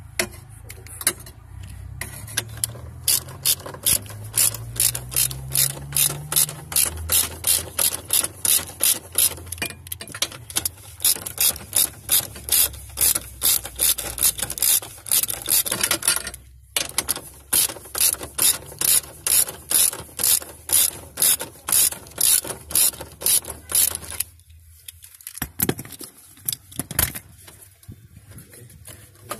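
Hand ratchet wrench clicking in quick, even strokes as dashboard mounting bolts are loosened, with a short break about halfway. It stops a few seconds before the end, leaving a few scattered knocks.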